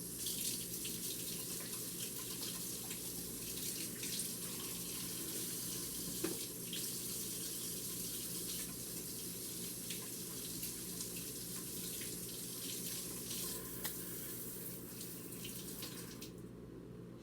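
Kitchen sink tap running while hands are washed under it, with small splashes and clicks. The water shuts off near the end.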